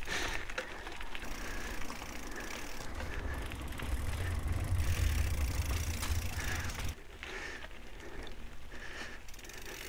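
Mountain bike rolling along a gravel path, its tyres joined by a heavier low rumble from about three and a half seconds in as it crosses a wooden plank bridge. The rumble cuts off suddenly near seven seconds as the bike rolls back onto the path.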